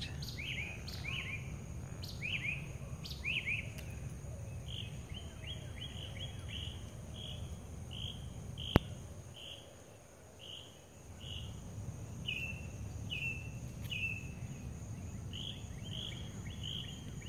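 Songbirds chirping, a long run of short high notes repeated about twice a second, over a low outdoor rumble. A single sharp click a little before the middle.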